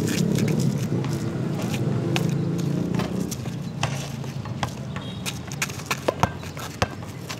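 Basketball bouncing on an asphalt court as a player dribbles: a few sharp thumps about half a second apart in the second half, over a steady low rumble.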